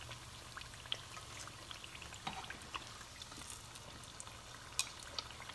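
Oil crackling and spitting around smashed green plantain slices in their second fry, scattered small pops over a low steady hum.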